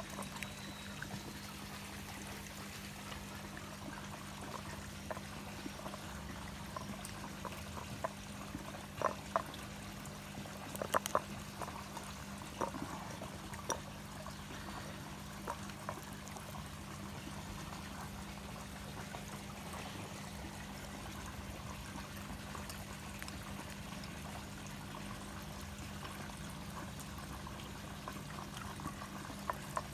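Water trickling and pouring steadily into a fish pond, over a low steady hum. A few light clicks come about nine to fourteen seconds in.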